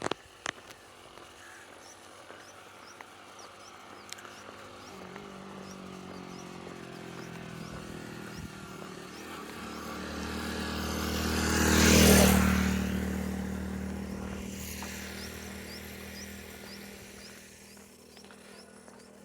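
A motor vehicle passes by. Its engine hum grows from about five seconds in, is loudest a little past the middle, then fades away. Faint repeated high chirps sound in the background.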